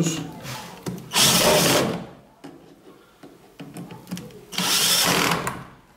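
DeWalt cordless drill driving a short screw through a metal angle bracket into a drawer corner, in two runs of about a second each with a few light clicks between. As the screw tightens it pulls the loose drawer side tight against the bracket.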